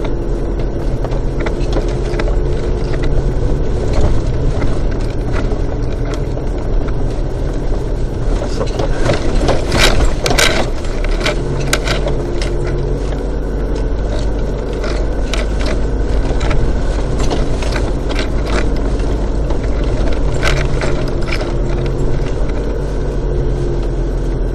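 Vehicle engine running steadily at low speed, its pitch rising and falling with the throttle, heard from inside the cabin. Knocks and rattles come throughout as the vehicle jolts over the ruts of a dirt track, with a burst of them about ten seconds in.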